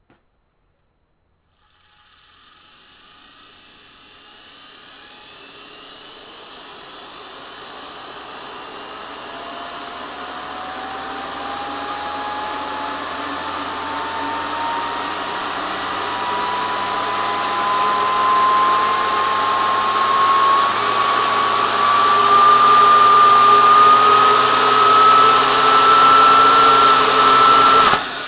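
Old Electrolux brushed universal motor, run straight through its brushes from a Variac, speeding up: a whine that rises steadily in pitch and grows louder for over twenty seconds, with the brushes arcing at the commutator. Near the end the sound drops off sharply as the overdriven commutator's bars fail.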